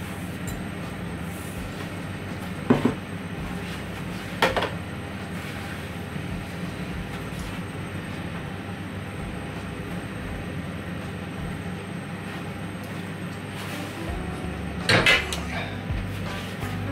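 A steady low hum, with sharp knocks about three seconds in and four and a half seconds in, then a brief cluster of louder knocks about two seconds before the end.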